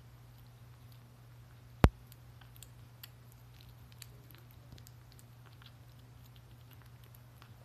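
Kitten eating wet cat food from a stainless steel bowl: faint, quick chewing clicks throughout, with one sharp click a little under two seconds in.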